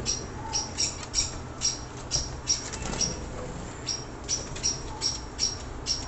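Caged pet finches calling: a run of short, high chirps, about two or three a second, with a pause of about a second a little past the middle.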